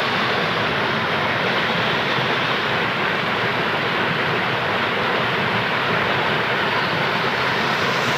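Waterfall: the steady roar of falling, rushing water, holding an even level throughout.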